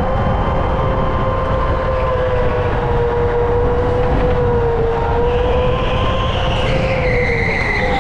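A go-kart running at race pace, heard onboard: a steady whine that wavers slightly in pitch over low rumbling. A higher whine joins from about five seconds in.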